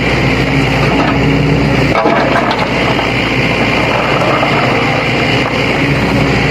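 Sany excavator's diesel engine running steadily under work, with a single clunk about two seconds in.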